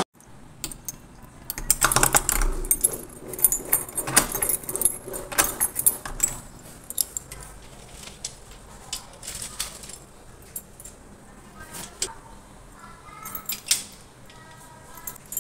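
Keys jangling and metal clicking and clanking as a door is shut, bolted and locked by hand, busiest in the first half and sparser later.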